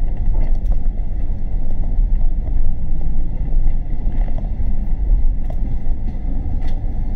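City bus under way, heard from inside the cabin: a steady low rumble of engine and road noise, with a few faint rattles.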